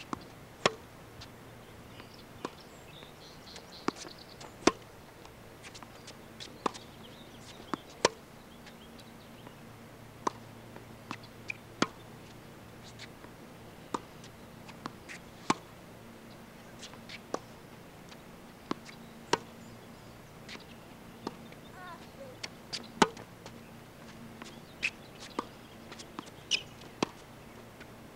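Tennis balls struck by rackets and bouncing on a hard court: sharp pops at irregular intervals, often in close pairs.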